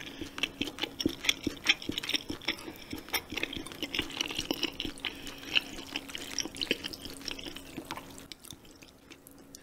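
Close-up wet chewing and lip-smacking from eating jjamppong noodles, a quick patter of moist mouth clicks that thins out near the end.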